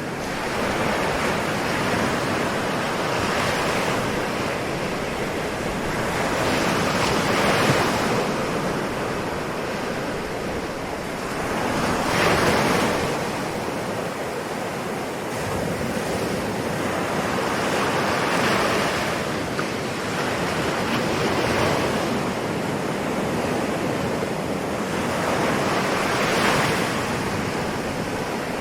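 Sea waves breaking and washing in: a continuous rush of surf that swells with each wave every few seconds and then falls back.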